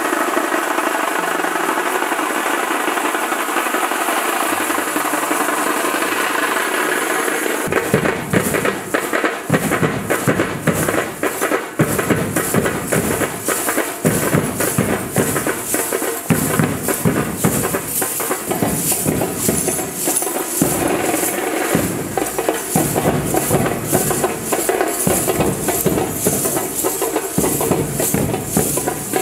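Indian folk percussion: softer music at first, then from about eight seconds in a fast, loud rhythm of dhol drum beats with jingling lezim.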